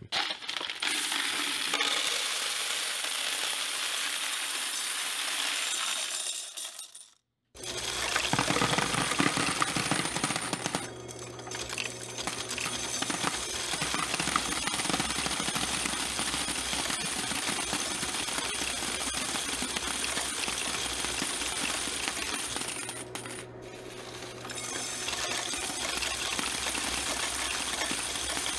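Coin counting and sorting machine running, a steady clatter of coins, mostly quarters, rattling through its spinning disc and sorter. The sound breaks off briefly about seven seconds in, then carries on over a steady motor hum.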